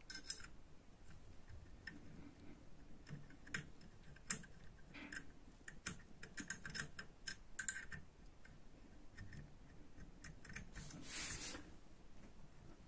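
Faint metallic clicks and ticks of a shortened hex key working the Allen screws in a Feinwerkbau LP 65 air pistol's grip frame, with a quick run of clicks in the middle and a short scraping rustle near the end.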